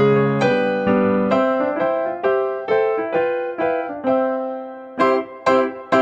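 Background music: a keyboard melody of struck notes and chords, each ringing and fading before the next.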